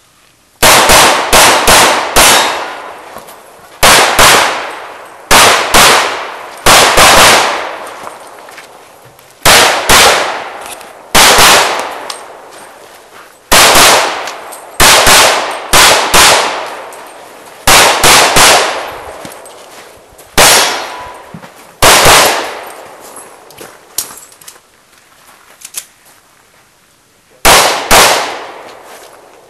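Pistol shots fired in quick pairs and short strings, with pauses of a second or two between groups as the shooter moves from one position to the next.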